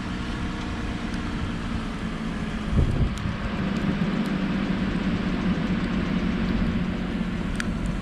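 A car engine running steadily, a low hum over a noisy background, with a brief low thump a little under three seconds in.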